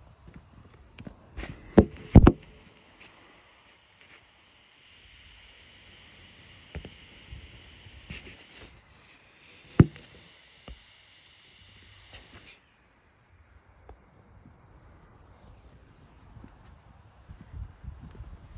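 Footsteps on a wooden deck with a few sharp knocks, the loudest about two seconds in and again about ten seconds in. Behind them is a steady high insect sound that stops about twelve seconds in.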